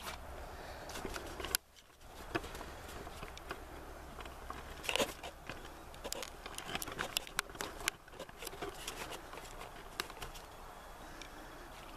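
Faint handling noise: rustling with scattered light clicks and ticks. A low hum cuts off abruptly about a second and a half in.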